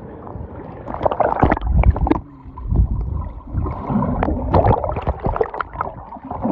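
Pool water sloshing and bubbling as a swimmer plunges under, heard through a camera at and below the surface. After a steadier first second come irregular, muffled gurgling and rushing bursts.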